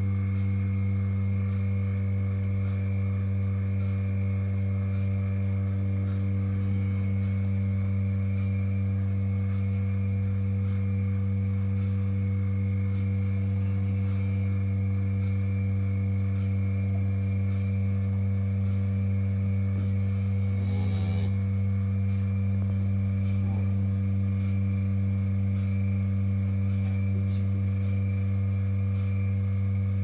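Steady low machine hum of barn equipment, a constant pitched drone with overtones that does not change, and a brief faint rattle about two-thirds of the way through.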